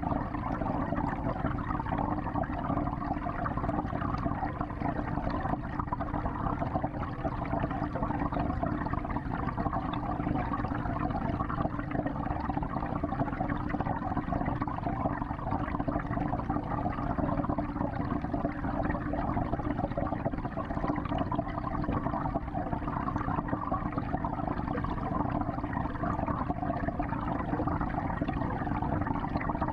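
Steady churning of circulating water inside a 55-gallon aquarium, heard by a camera within the tank: a constant, even rush with no separate splashes or clicks.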